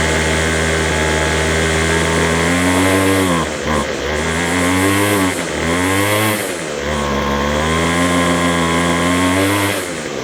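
McCulloch strimmer's small two-stroke engine running at speed, its pitch sagging and picking up again several times in the middle and easing off near the end. It will not settle to an idle (no tick over), a carburettor fault the owner puts down to the diaphragm.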